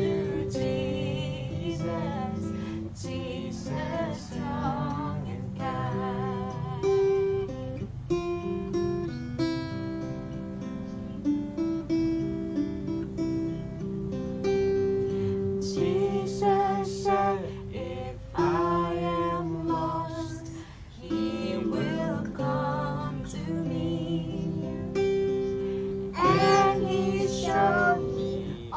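Strummed acoustic guitar accompanying a woman singing a slow worship song.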